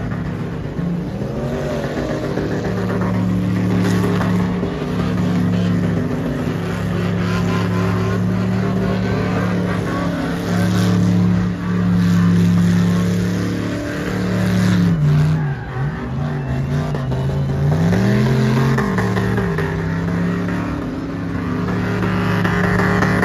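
Pickup truck engine running steadily, with a few revs that make its pitch fall and rise about two-thirds of the way through.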